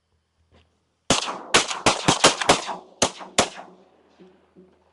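A volley of about eight shotgun shots in quick succession from several hunters firing at passing ducks, packed into about two and a half seconds, the last two a little more spaced out, each with a short echo.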